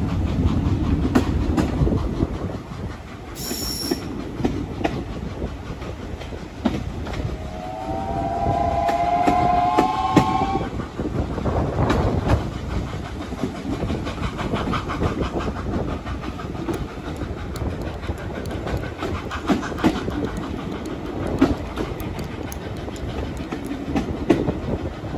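Heritage train carriages running along the line with a steady rolling rumble and rapid rail clicks. About eight seconds in, the steam locomotive at the head of the train sounds its whistle for about three seconds, a chord of several notes that rises slightly in pitch before it cuts off.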